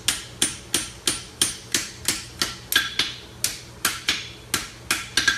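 Farrier's hand hammer striking a hot horseshoe on an anvil, bumping the toe, in a steady run of blows about three a second, each with a short metallic ring.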